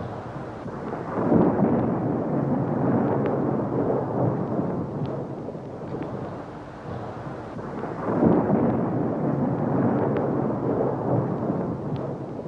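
Thunder rumbling in two long rolls, the first starting about a second in and the second about eight seconds in, each dying away slowly.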